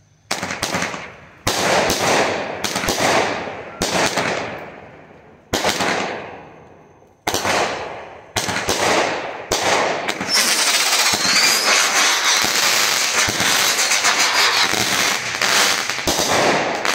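Phantom Fireworks Raging Rottweiler 16-shot firework cake firing. A string of sharp shots comes every one to two seconds, each fading off in a hiss. From about ten seconds in they run together into a dense, continuous crackle.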